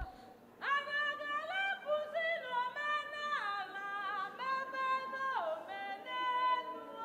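A high solo voice singing unaccompanied, holding long notes and gliding down between them, with a quavering note around the middle.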